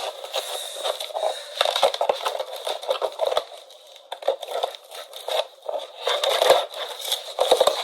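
Scotch tape and packaging being pulled and torn off a box by hand: irregular crackling, crinkling and scraping, with a quieter pause about four seconds in.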